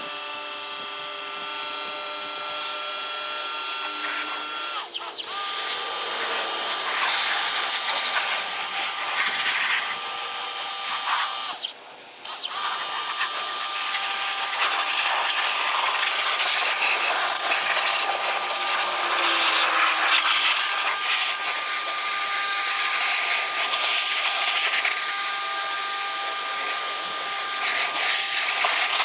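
Ryobi 1600 PSI electric pressure washer running with a steady motor whine and the hiss of its water jet spraying a car's bodywork. It cuts out for about half a second near the middle, then runs on.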